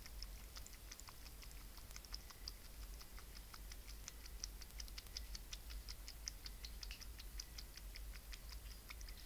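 Opossum lapping water: a quick, irregular series of faint, high, small clicks, several a second.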